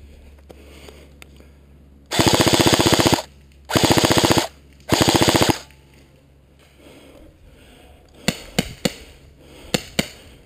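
Airsoft rifle fired in three full-auto bursts of about a second each, a rapid mechanical rattle of shots. A few single sharp snaps follow near the end.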